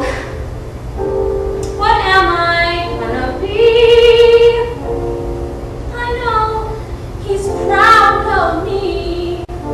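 A woman singing a solo musical-theatre song, with long held notes, the loudest about four seconds in and again near eight seconds.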